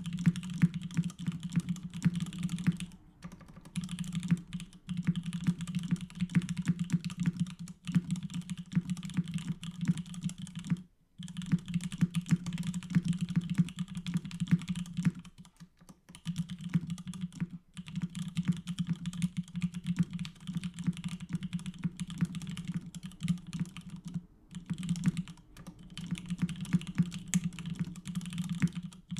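Fast, continuous typing on a Duck Mini v1 mechanical keyboard with Krytox-lubed 65 g Nixdorf vintage black linear switches on an aluminium plate: a rapid stream of keystroke clacks, broken by a few brief pauses.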